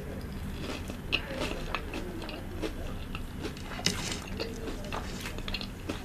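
Close-miked chewing of a crispy fried patty: wet mouth sounds with a string of small crunches, and two sharper crunches about a second in and near four seconds.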